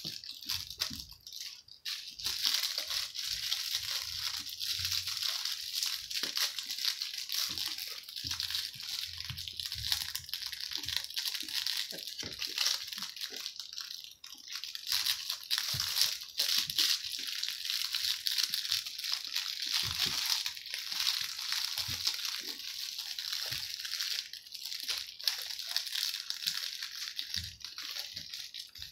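Steady crinkling and rustling as several puppies chew and tug at a plush shark toy on a blanket, with many small clicks and scuffs throughout.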